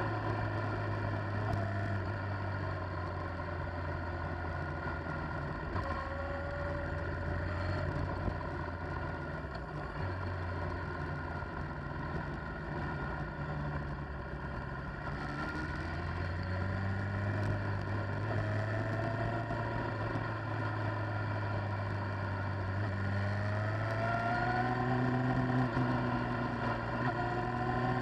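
Motorcycle engine running under way, heard from the bike itself, its revs dipping and climbing again several times through the bends, over steady wind and road noise.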